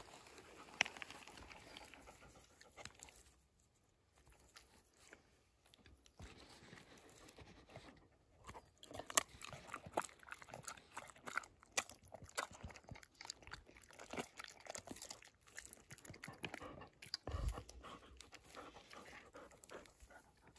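Dog chewing a treat: irregular sharp crunches, with a quieter pause a few seconds in, then a dense run of crunching.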